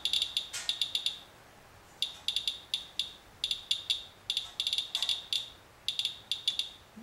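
Medcom Inspector handheld Geiger counter clicking out its counts in irregular clusters, with short gaps between, over a wipe sample. The count rate is raised: about nine times normal background radiation, read as fallout washed down in the rain.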